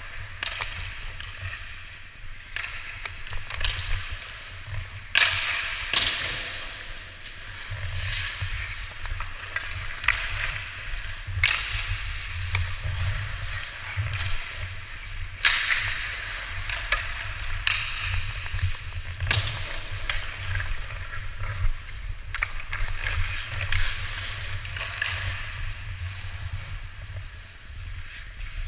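Ice hockey skates scraping and carving on the ice in repeated bursts, with sharp knocks of sticks and puck scattered throughout, over a steady low rumble.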